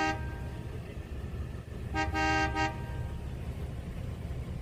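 Car horn honking: one blast cuts off just as it begins, and a second, under a second long, sounds about two seconds in, over the low steady rumble of the idling car, heard from inside the cabin.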